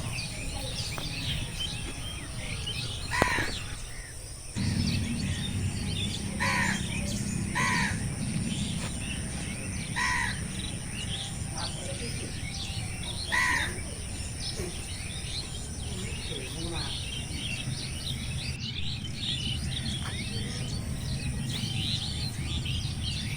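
Chorus of many birds chirping, with a louder call ringing out about five times every few seconds, over a steady low rumble.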